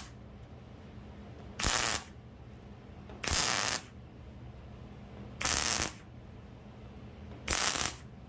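MIG welder with .023 wire and shielding gas laying four short tack welds about two seconds apart, each a loud half-second crackle of the arc, tacking a thin strip of 18-gauge sheet metal to a car body.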